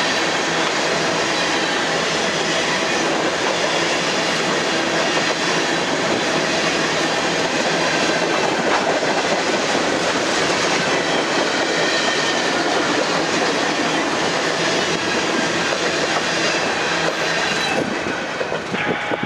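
Freight train of steel tank cars rolling past at close range, a steady rumble of wheels on the rails. Near the end the last car goes by and the sound falls away.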